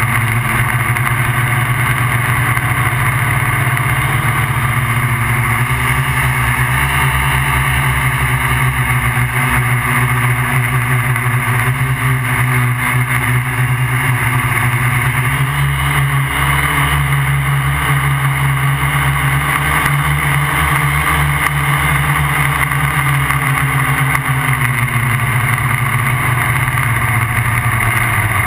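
MikroKopter QuadroKopter XL quadcopter's four electric motors and propellers buzzing steadily in flight, picked up by the GoPro mounted on it. The pitch shifts slightly a few times as the motors speed up and slow down.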